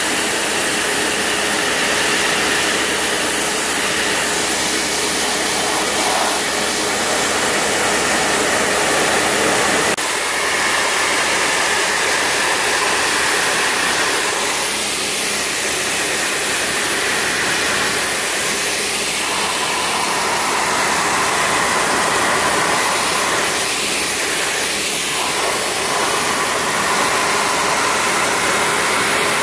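Kärcher K2 Compact 1400-watt electric pressure washer running steadily, its motor and pump droning under the hiss of the water jet spraying across timber decking to strip green paint.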